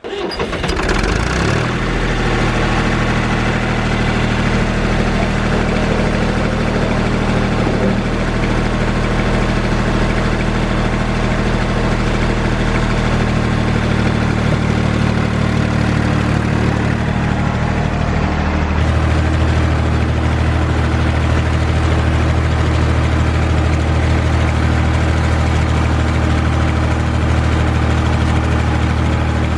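An engine starts up and runs steadily at idle, its note shifting once about two-thirds of the way through.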